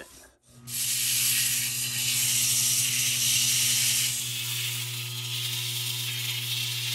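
Wood lathe running with sandpaper pressed against the spinning walnut blank: a steady sanding hiss over the motor's low hum. About four seconds in, the hiss drops a little.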